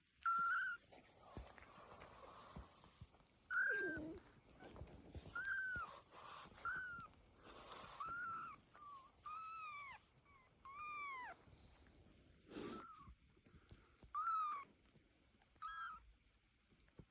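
Young kittens mewing: about a dozen short, high-pitched mews, each rising and then falling, spaced out with pauses between them.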